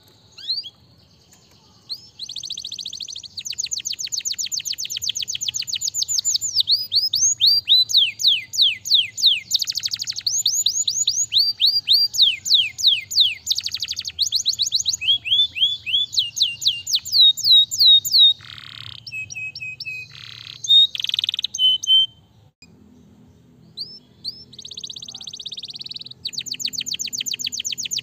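Domestic canary singing a long song of fast trills: runs of rapidly repeated downward-sweeping notes that switch to a new trill every second or two. There is a short break about 22 seconds in before the song starts again.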